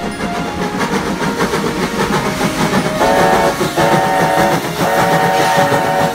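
Steam locomotive whistle blown in three blasts about a second apart, starting about halfway, over the steady rumble of a passing train.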